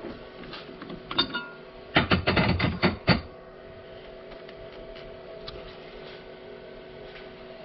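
Sharp metal clicks with a short ring, then a burst of rapid metallic clatter lasting about a second, as the brass carriage bolt is taken out of the metal lathe chuck; a faint steady hum runs underneath.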